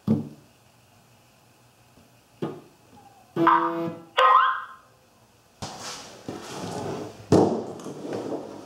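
Hardware being handled on a workbench: a knock at the start, two short pitched tones a little past three seconds in, the second rising, then several seconds of scraping and clatter as a motor rig is set down.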